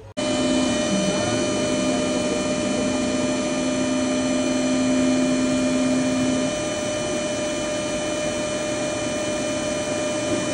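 A steady machine hum and whine with several held tones, starting abruptly; one low tone drops out about six and a half seconds in.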